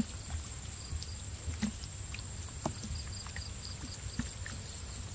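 Hands working through wet mud and shallow water: soft squelches and light splashing with a few scattered clicks, over a low rumble.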